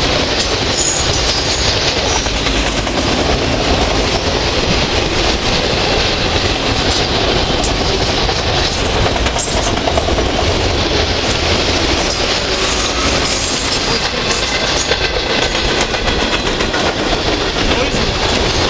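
Canadian Pacific freight train's cars passing close at speed: a steady loud rumble with rapid clicks of the wheels over rail joints.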